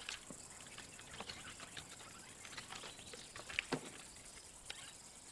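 Faint scratching and scraping of a young lion's claws gripping tree bark as it climbs. A sharper click comes about three and a half seconds in.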